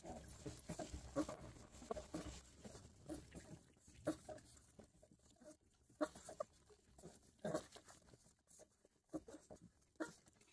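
Young bloodhound puppies nursing from their mother, making short faint squeaks and suckling noises on and off.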